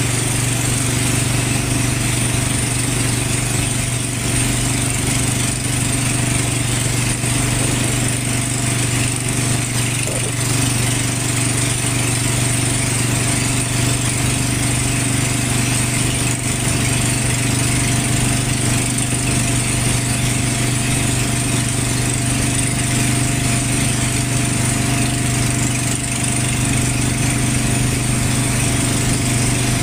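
Small boat's engine running steadily at a constant speed, a low even drone with no change in pitch.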